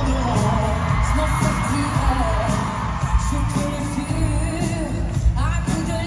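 Pop song performed live through an arena sound system: a band with drums and heavy bass under several voices singing.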